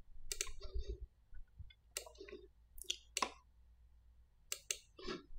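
Computer mouse left-button clicks, about six sharp clicks at irregular intervals.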